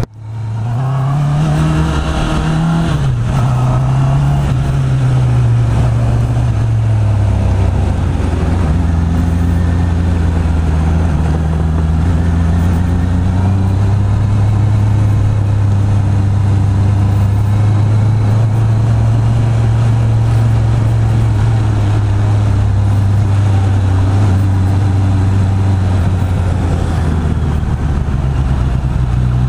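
Honda CB650R's inline-four engine through its stock exhaust, pulling up through the revs and dropping back twice in the first few seconds as it shifts up, then running at a steady cruising speed.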